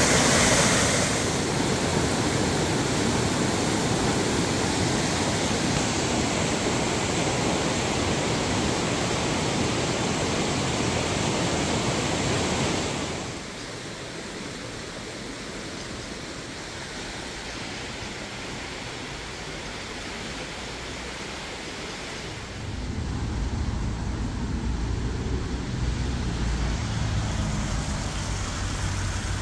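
A waterfall in spate pouring over stepped rock ledges: a steady rushing of water that drops away a little before halfway through, leaving quieter outdoor background. About three quarters of the way through a low rumble sets in and holds.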